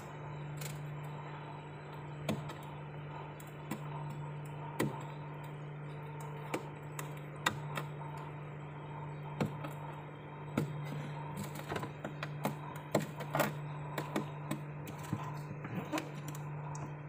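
Fingernails scraping and picking frost off a ribbed plastic freezer liner: irregular small clicks and cracks of ice flaking away, coming more often in the second half, over a steady low hum.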